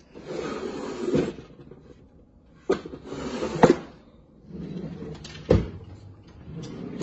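Wooden tool-chest drawers sliding in and out. Three of the slides end in a sharp knock, the loudest about halfway through, and a fourth slide comes near the end.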